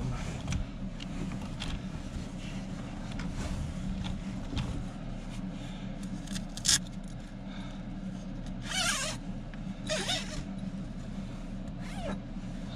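A sleeping bag being spread out and handled: rustling and scraping of the fabric, with a sharp swish about six and a half seconds in and two longer swishes around nine and ten seconds in, over a steady low hum.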